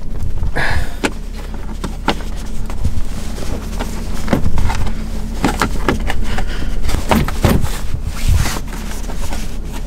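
Handbrake trim's retaining pins being pushed into a BMW M4's centre console by hand: a run of irregular clicks and knocks with rubbing of trim and fabric, over a steady low hum.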